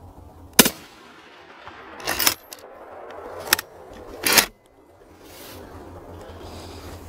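Four gunshots within about four seconds, each a sudden loud bang; the second and fourth are drawn out longer than the first and third.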